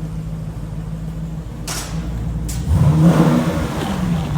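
Jeep SRT's V8 engine idling steadily, then revving up briefly about two and a half seconds in. Two short hiss-like sounds come just before the rev.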